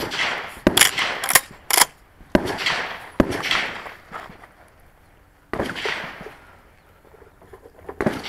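A string of about eight gunshots at irregular intervals, each sharp crack trailing off in a long echo, with a gap of a couple of seconds near the middle.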